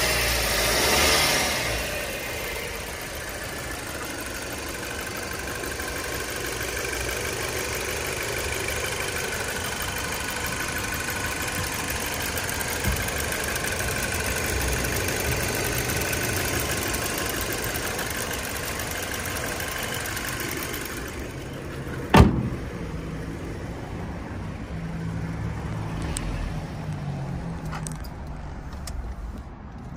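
A 2008 Audi A4 2.0T's turbocharged four-cylinder engine idling after a cold start, heard with the bonnet open, a little louder for the first couple of seconds. About 22 seconds in there is one loud thump, and after it the engine sounds faint and muffled.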